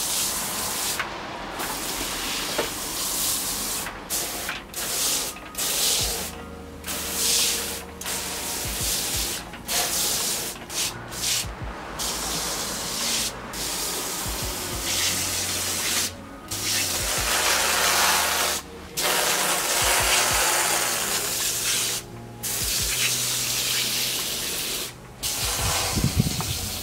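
Hand-pumped pressure washer spraying water in its wide diffuse setting, flushing wood chips along a gutter: a loud, steady hiss of spray, broken every second or few by short pauses.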